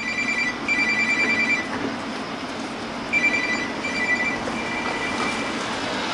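A phone ringing with a two-tone trilling ring in short bursts. It pauses about a second and a half in and starts ringing again about three seconds in.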